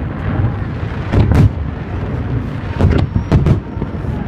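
Fireworks salute shells bursting overhead: about five loud booms, two in quick succession at around a second in and three more close together near the end, over a steady rumble of other bursts.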